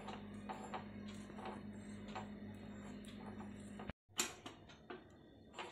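Corn roti crackling with faint irregular ticks as it roasts directly over a gas burner flame, over a low steady hum. The sound cuts off abruptly about four seconds in, and a single sharp click follows.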